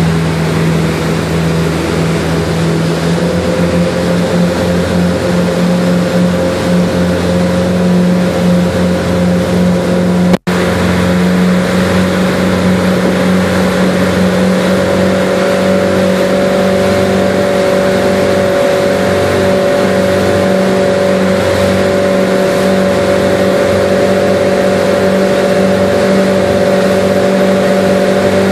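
A fishing boat's engines running steadily at speed, over the rush of the wake and wind. The engine note steps up slightly a few seconds in and again about ten seconds in, and the sound cuts out for an instant around the second step.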